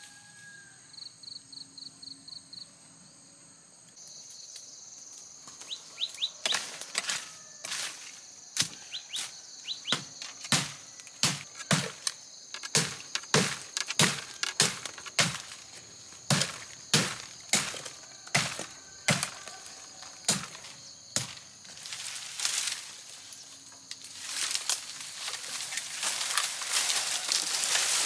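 A long run of sharp knocks or chopping blows, about two a second, over a steady high insect drone; a bird gives a quick series of short chirps near the start. Near the end the knocks give way to a building rushing noise.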